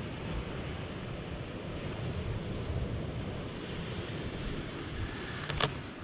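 Steady seaside ambience of wind and surf, with low wind rumble on the microphone. A single short sharp click near the end.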